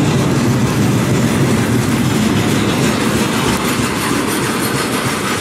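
Freight train of railway tank cars rolling past at close range: a steady rolling noise of steel wheels on the rails, easing slightly near the end.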